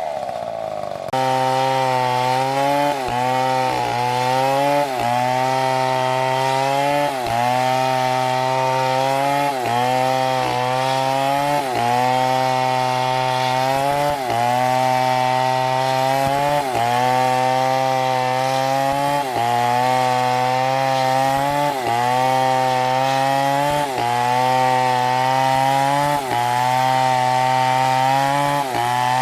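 Chainsaw engine running under load while cutting wood, its pitch dipping and recovering in a steady rhythm every second or two. There is an abrupt change about a second in.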